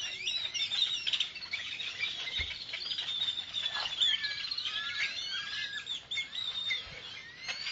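A dense chorus of many birds calling at once: overlapping quick chirps and short rising and falling whistled notes, going on without a break.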